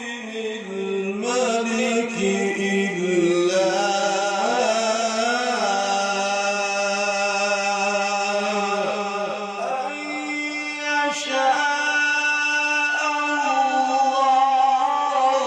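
A man's voice chanting a long, drawn-out melodic phrase of Quran recitation in the ornamented mujawwad style, holding notes with wavering ornaments and sliding to a higher pitch about ten seconds in.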